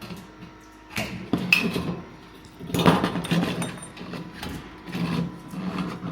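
Thin sheet metal being handled and bent by hand: a series of sharp metallic clanks and rattles, the loudest about a second, three seconds and five seconds in, over a steady low hum.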